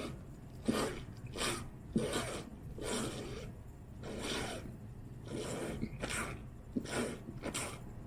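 Repeated short sucks and slurps of water and air through a leaky, wide homemade paper straw, with gulps and quick breaths between them, a few with sharp catches.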